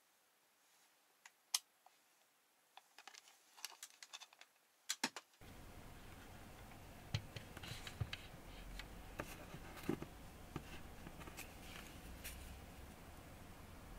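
Faint clicks and taps of a guitar effects pedal and small tools being handled on a work mat: scattered sharp ticks, a quick cluster about five seconds in. After that a steady hiss with a faint low hum sits under further small knocks as the opened pedal is turned in the hands.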